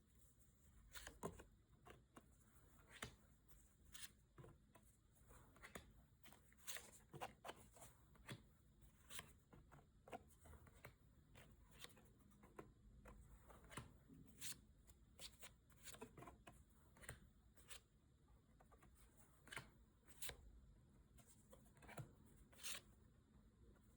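Trading cards being handled and flipped through: faint, irregular soft clicks and flicks of card against card, several a second at times.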